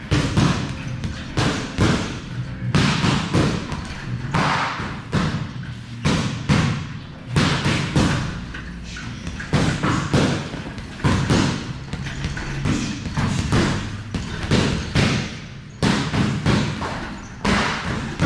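Boxing gloves punching a double-end bag in quick flurries: a run of sharp thuds, many coming two or three close together.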